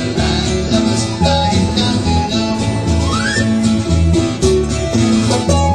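Folk band playing a sea shanty: an instrumental passage of strummed acoustic guitar over a steady beat, with a short rising slide about three seconds in.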